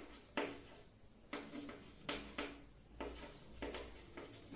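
Chalk writing on a chalkboard: an irregular run of faint, short taps and scratches, two or three strokes a second.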